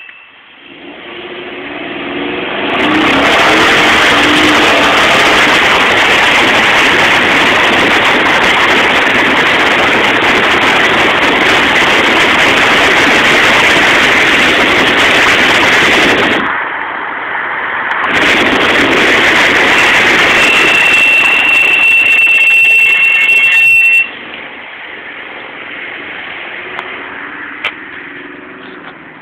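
Jeep SRT-8 driving with loud engine and road noise, then about 20 seconds in a steady high-pitched brake squeal from its Stillen slotted rotors and Hawk LTS pads for a few seconds as it slows, cutting off abruptly; afterwards the engine runs much quieter. The squeal is the persistent one that will not go away.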